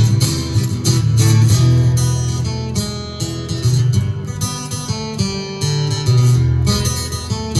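Live punk rock song in an instrumental break with no singing: strummed guitar to the fore over changing low notes.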